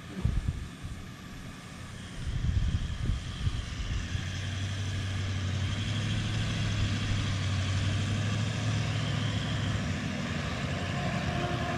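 Toyota LandCruiser 70-series ute driving along a soft-sand track toward the listener, its engine hum growing steadily louder as it approaches. A few low gusty thumps come in the first few seconds.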